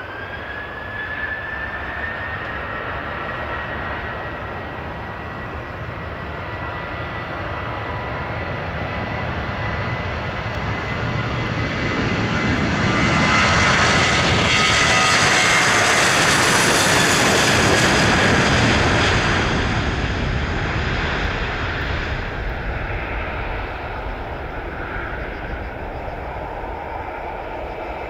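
A Boeing 737-700 BBJ's CFM56-7 turbofans spooling up to takeoff thrust, with a rising then steady high whine. Then the takeoff roll: the jet noise grows as the aircraft passes, is loudest around the middle, and fades as it pulls away and lifts off.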